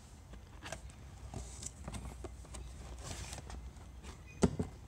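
Cardboard box being handled and its flaps pulled open: scattered light rustles, scrapes and taps, with one sharper knock near the end.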